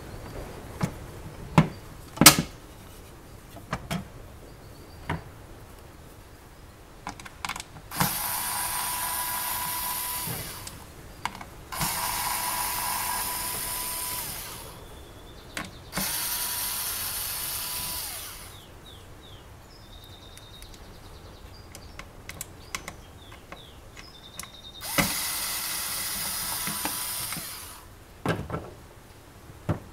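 A cordless drill-driver whirring in four runs of two to three seconds each as screws are backed out of the pie maker's housing, with sharp clicks and knocks of parts and tools being handled between the runs.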